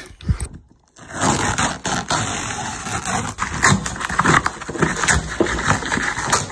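Cardboard box and packing tape being torn open by hand, with the plastic bubble wrap underneath crinkling. A dense run of tearing and crackling starts about a second in.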